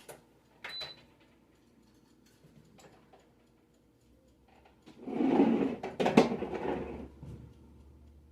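Kitchen handling noises: a click with a short high beep near the start, then about two seconds of rustling and clattering with a couple of sharp knocks.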